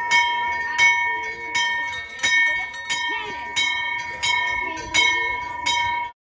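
Brass temple bell rung steadily for a puja offering, about one strike every 0.7 seconds, each strike ringing on into the next. It cuts off suddenly near the end.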